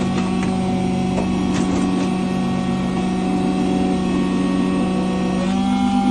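Key-cutting machine motor running with a steady hum and a few light clicks; about five and a half seconds in, the pitch shifts and the sound thickens as the cutter works the key.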